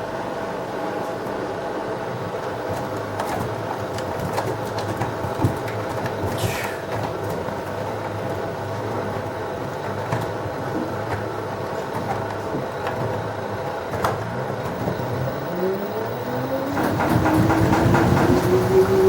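LG washing machine running with a steady hum and scattered knocks. Near the end the motor's whine rises in pitch as the drum speeds up, and the sound grows louder with dense rattling knocks: a hard, unbalanced spin.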